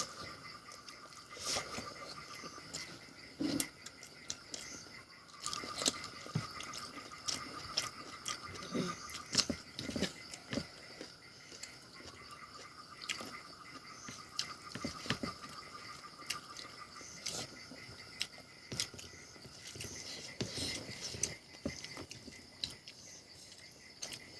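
Close-up eating sounds: irregular chewing, biting and mouth smacks of a person eating a meal. A steady high-pitched hum runs underneath.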